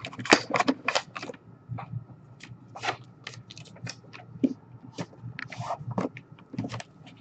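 A cardboard box and its plastic packaging being handled and closed: a quick run of rustles and clicks in the first second or so, then scattered taps and crinkles.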